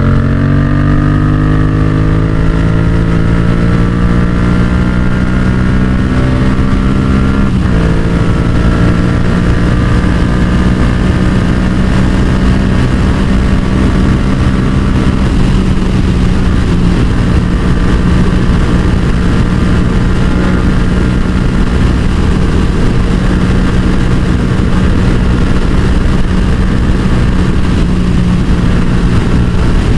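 Yamaha XSR700's 689 cc parallel-twin engine pulling hard at speed under heavy wind noise. Its pitch climbs through a gear, breaks briefly at a gear change about 7 seconds in, climbs more slowly again, then holds steady at high revs for the second half.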